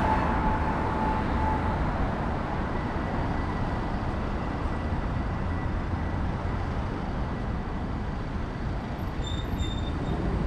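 Steady road traffic rumble on a busy city street, easing a little after the first couple of seconds as a vehicle moves off. A brief high squeak comes near the end.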